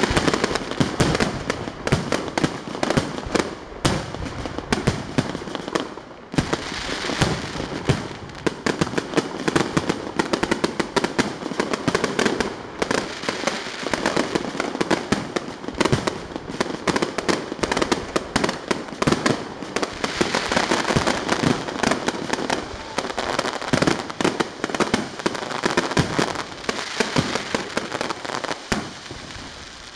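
Aerial firework shells launching and bursting in rapid, overlapping succession, with dense crackling between the bangs; the barrage thins out just before the end.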